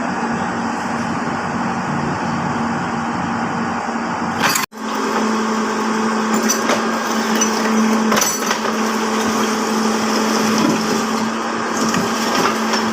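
Steady construction machinery noise that breaks off abruptly about four and a half seconds in, then goes on as a steady motor hum with scattered clicks and knocks.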